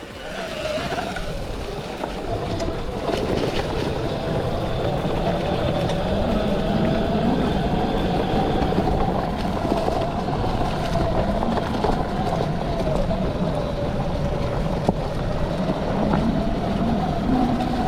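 Electric dirt bike's motor whining at a fairly steady, slightly wavering pitch while pulling up a steep dirt hill, over a dense rumble of wind and tyre noise.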